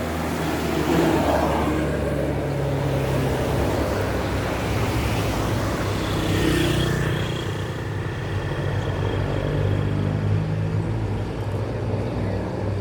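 A bus engine running, with a steady low hum that shifts slightly in pitch, over road traffic noise.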